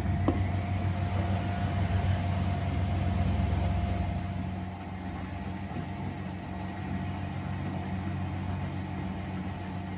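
Miele Novotronic W925 washing machine running, its motor giving a steady low hum with a thin whine above it. A short click sounds right at the start, and the running gets a little quieter about halfway through.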